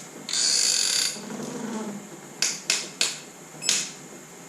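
Wrench work on cylinder head bolts: a harsh metal creak for about a second as a bolt is turned, then four sharp metallic clicks from the wrench.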